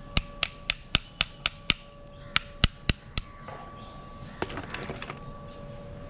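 Sharp metallic taps from a hand tool working at a motorcycle's disc brake caliper during a brake pad change: about seven quick taps at roughly four a second, a short pause, four more, then a quicker cluster of lighter clicks near the end.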